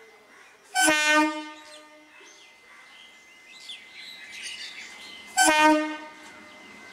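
EMU local train's horn sounding two short blasts, about four and a half seconds apart, as the train gets ready to depart.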